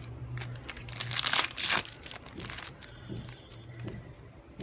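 A trading-card booster pack wrapper being crinkled and torn open, in several loud rustling bursts over the first two and a half seconds, then quieter handling rustles.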